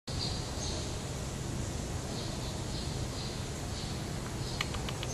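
Outdoor ambience: a steady low hum with faint high chirps recurring about every half second. Near the end comes a quick run of about four sharp clicks.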